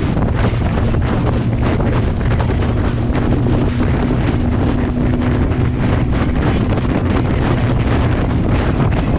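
Heavy wind noise battering the microphone, with a steady engine drone beneath it, as from a motorcycle riding at a constant speed.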